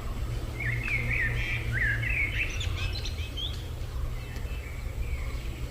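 Birds chirping in a quick run of short, rising and falling notes, with fainter calls afterwards, over a steady low rumble.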